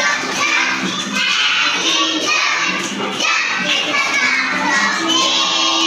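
A class of young children singing and shouting together over background music.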